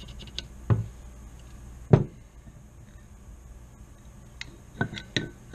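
Ruger PC Carbine parts clicking and knocking as they are handled and fitted together on a workbench: a few separate knocks, the loudest about two seconds in.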